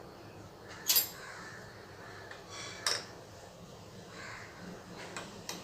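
A spoon scooping thick strained curd out of a sieve: faint soft scraping with two light clicks, about one second and three seconds in.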